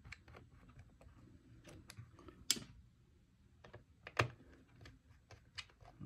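Faint, scattered small clicks and taps of a precision Torx screwdriver and screws as the hard-drive retaining clamp is screwed back into an opened MacBook Pro. There are two sharper clicks, about two and a half and four seconds in.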